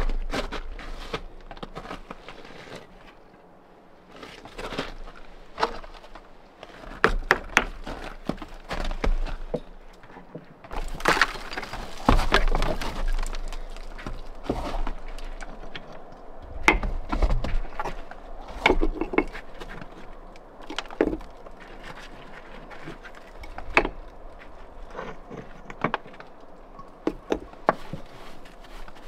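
Lime mortar being flicked by a gloved hand into the joints of a dry-stone wall and pressed in against the stones: irregular slaps, gritty scrapes and small clicks, with a few louder clusters.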